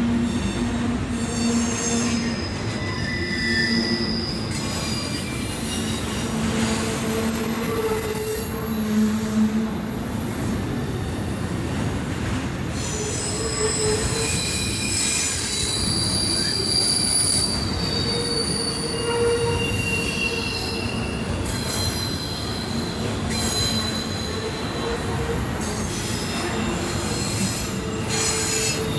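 Norfolk Southern freight train rolling past, its car wheels squealing against the rails with shifting high-pitched screeches over a steady rumble.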